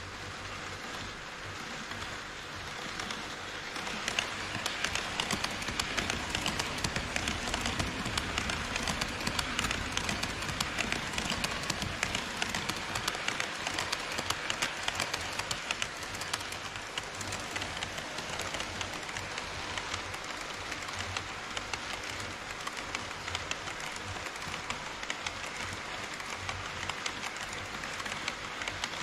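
HO scale model trains, an E5 series Shinkansen and a container freight train, running past on KATO Unitrack: a steady rumble of wheels on the rails with rapid clicking, growing louder about four seconds in.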